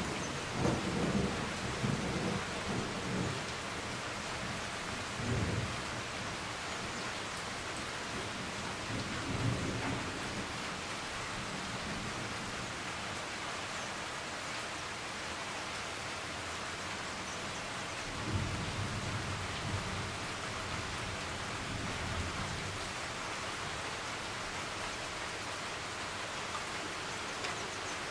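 Steady rain falling, a constant hiss, with rolls of thunder rumbling low: a long one near the start, shorter ones about five and ten seconds in, and another long roll past the middle.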